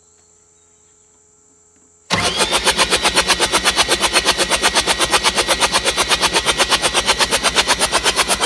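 The JCB JS220 excavator's diesel engine starts abruptly about two seconds in and runs loudly with a heavy, even pulse about seven times a second. This happens during an injector cylinder test on an engine with an E717 injector fault.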